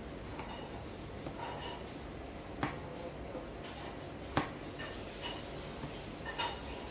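A knife blade knocking on a wooden board as a sheet of noodle dough is cut by hand: a few sharp taps, two of them louder, over a steady background hiss.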